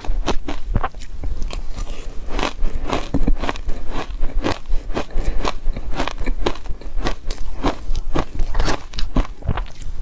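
Close-up crunching and chewing of soft shaved ice coated in green powder: a quick, continuous run of short, crisp crunches as the mouthfuls are bitten and chewed.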